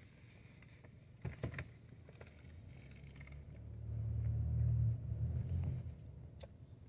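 Low rumble of a car driving slowly, heard from inside it, swelling about three and a half seconds in and easing off near six seconds. A couple of light knocks come about a second and a half in.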